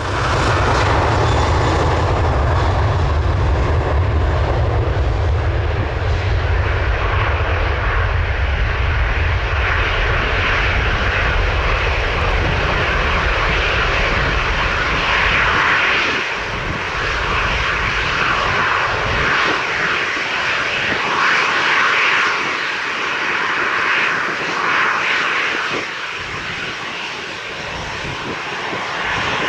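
Boeing 737-800 jet engines at takeoff power, a loud continuous jet roar. It starts with a heavy deep rumble, which drops away after roughly 15 seconds to leave a wavering higher roar that fades gradually near the end.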